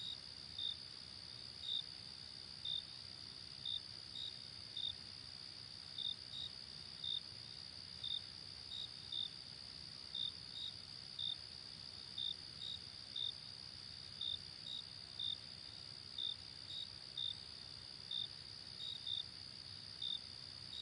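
Crickets chirping: a steady high trill runs throughout, with short separate chirps over it, a little under two a second at uneven spacing.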